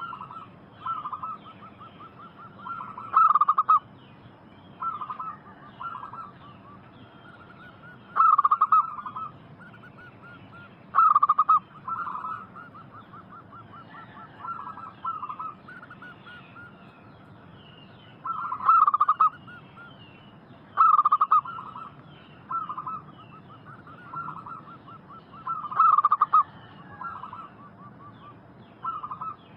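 A local zebra dove (perkutut) cooing over and over: rolling, stuttering coo phrases come every couple of seconds, some loud and some softer. Faint high chirping runs behind them.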